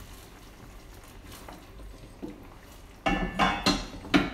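Chicken stock poured faintly into the curry pan, then about three seconds in a burst of pot-and-pan clatter, four sharp knocks, as a saucepan is set down on the gas hob's grate and a wooden spatula stirs and scrapes the curry in its pan.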